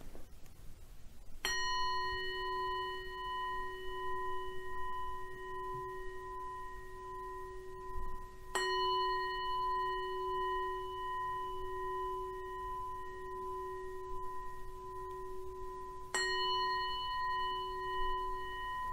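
A singing bowl struck three times, about seven seconds apart, each stroke ringing on with a slowly wavering hum until the next.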